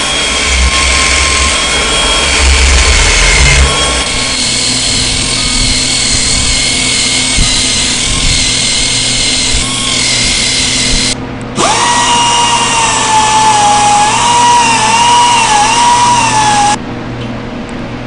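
Hand-held rotary grinder buffing and cutting into the rubber of an off-the-road tyre's damaged area: a high-pitched whine that sags and wavers as the bit bites. It cuts out briefly a little past halfway, spins back up, and stops shortly before the end.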